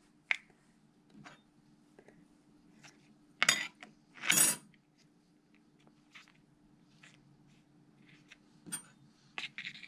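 Handling noises from a small plastic cup of calcium-dusted mealworms and metal tweezers on a countertop: scattered light clicks and taps, with two louder scraping knocks about three and a half and four and a half seconds in. A faint steady hum runs underneath.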